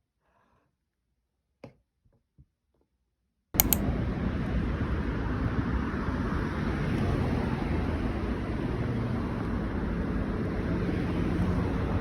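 Near silence with a few faint clicks, then about three and a half seconds in a sudden cut to a loud, steady noise with a low rumble.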